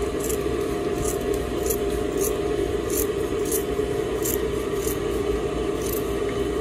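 Scissors snipping through fabric in a series of short cuts, roughly one or two a second, following a rounded outline. A steady low hum runs underneath.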